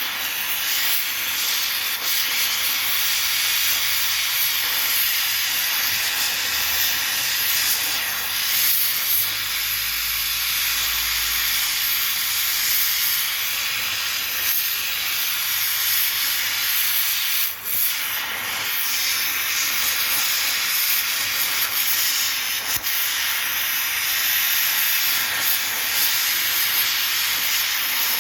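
Steady hiss of a gas welding torch flame, as used to weld lead battery plates together, with a brief break about two thirds of the way through.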